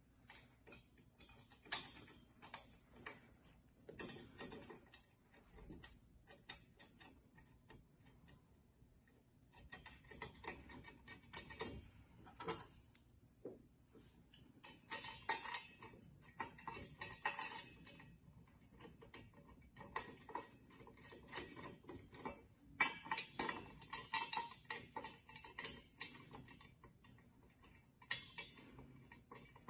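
Faint, scattered clicks and clinks of screws and small metal hardware being handled and fitted into a metal chair frame, coming in irregular clusters.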